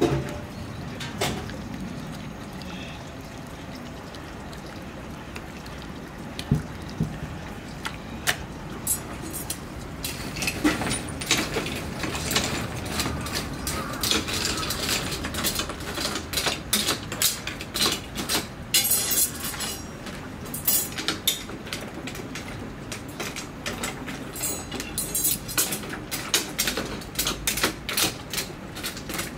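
Skewered eel grilling over a charcoal fire, with dense, irregular crackling and sizzling that starts about ten seconds in. Before that, quieter kitchen handling with a few sharp knocks.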